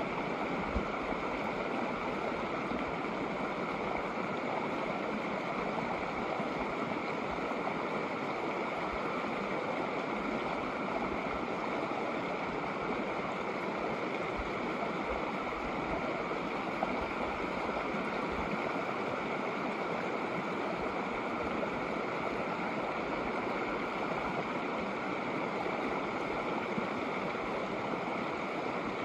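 Shallow snowmelt mountain creek flowing steadily over rocks, an even rushing of water.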